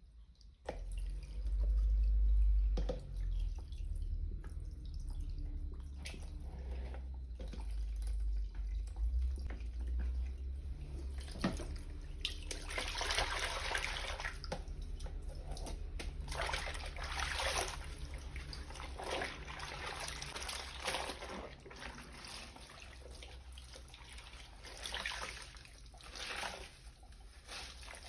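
Water sloshing, splashing and dripping in a tub as a pillow is washed by hand, in irregular swishes through the second half, with a low rumble in the first part.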